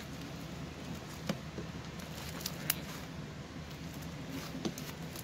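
Thick slime being kneaded and squished by hand, giving off faint sticky clicks and small pops every so often.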